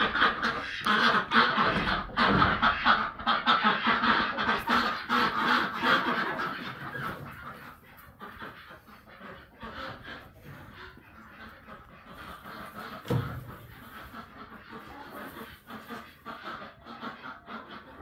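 Many farm birds calling at once in a busy, loud din that eases after about six seconds into quieter scattered calls, with a single thump partway through.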